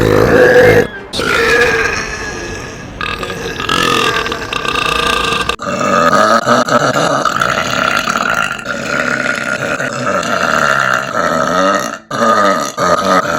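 Several long, loud human burps back to back, each a drawn-out pitched belch, cut abruptly one into the next. The longest runs about six seconds in the middle.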